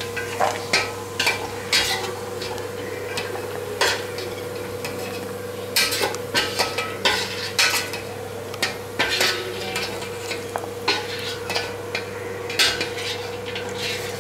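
Perforated steel skimmer scraping and clinking against a stainless steel pot as fried cashews are scooped out of hot ghee, with irregular sharp clinks and light sizzling over a steady low hum.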